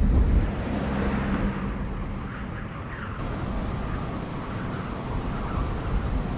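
An SUV drives by, its engine and tyres loudest right at the start. About halfway through, the sound switches to steady engine and road rumble heard from inside a moving car's cabin.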